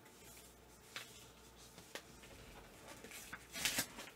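Faint handling of paper and cardboard packaging: a couple of light taps, then a short rustle near the end.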